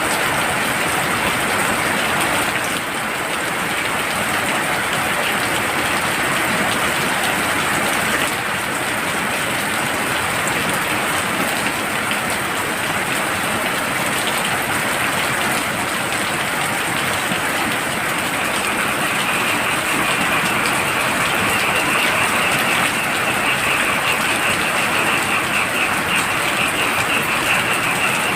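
Heavy rain falling steadily. About two-thirds of the way through, a high, fast-pulsing trill of frogs calling joins in and carries on over the rain.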